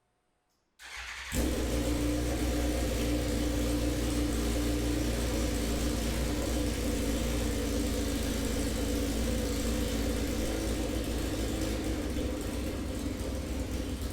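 A 2006 Suzuki GSX-R1000's inline-four engine starting for the first time after a rebuild: it catches about a second in and then runs steadily.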